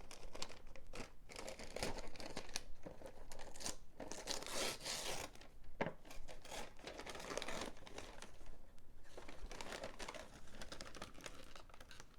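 Gift wrapping paper and packaging being handled, crinkling and rustling irregularly with a few short tearing sounds and small clicks.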